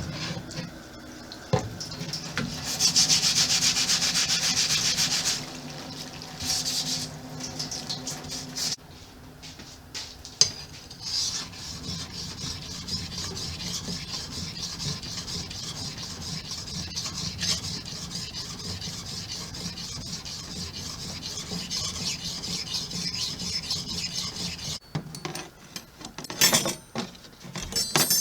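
Steel knife blade scraping in quick, repeated rasping strokes. The scraping is loudest for a couple of seconds near the start, then runs on steadily, with a few sharp clicks near the end.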